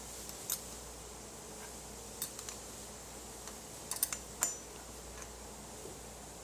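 A wrench tightening the nut of a bicycle saddle clamp: a few scattered light metallic clicks and taps, one near the middle with a brief high ring.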